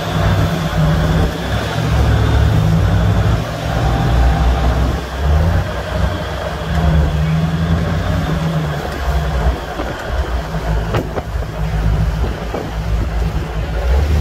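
Heavy marine diesel engines running with a low, uneven rumble, and a single sharp click about eleven seconds in.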